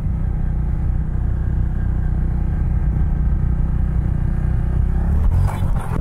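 Motorcycle engine running steadily while riding. About five seconds in the bike crashes: a short burst of scraping and knocking noise as it goes down on the road.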